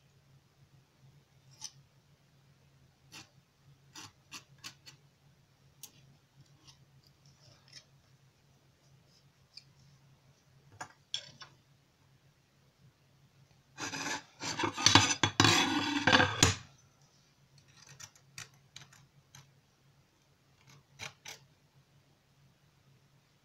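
Metal palette knife tapping and scraping on a hard board as it works green decorative plaster: scattered light clicks, then a loud scraping for nearly three seconds a little past halfway.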